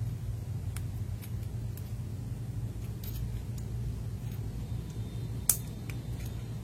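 Scattered light plastic clicks of a mechanical keyboard switch being handled and pried open, the sharpest about five and a half seconds in, over a steady low hum.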